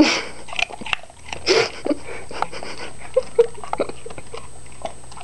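A dog crunching and chewing a raw carrot, loudly, with many short crunches and two louder noisy bursts, one right at the start and one about a second and a half in.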